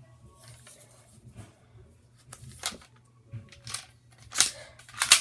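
Adventure Force toy dart blaster being handled and reloaded: a series of plastic clicks and clacks, growing louder, with two sharp snaps near the end.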